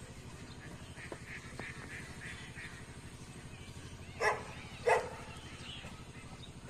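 Two short, loud animal calls about half a second apart, over a steady low hum. A run of faint high chirps comes before them.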